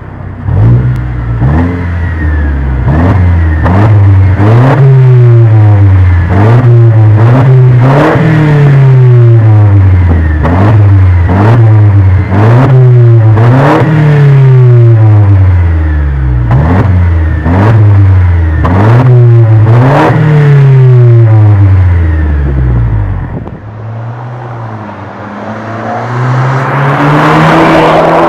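Mercedes-Benz W204 C250 CGI's turbocharged 1.8-litre four-cylinder, breathing through an aftermarket MEC Design exhaust, is revved again and again at standstill, each blip rising and falling, with sharp cracks near the tops of the revs. Near the end the car accelerates past, loudest as it goes by.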